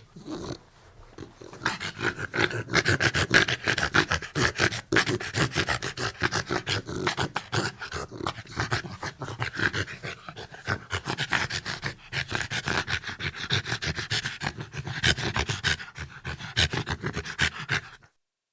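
Pit bull panting heavily in quick, labored, snorting breaths, with a whining note running through them. The sound stops abruptly near the end.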